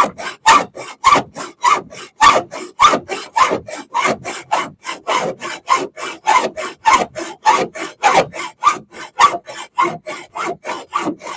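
Hand saw cutting back and forth through the metal gunwale of a fiberglass boat, about three rasping strokes a second.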